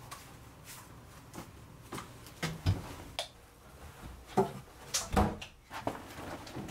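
A run of short knocks and clunks from shoes on the entryway floor and an apartment front door being pulled open, with the heaviest, deepest thud about five seconds in as the door swings and she steps out.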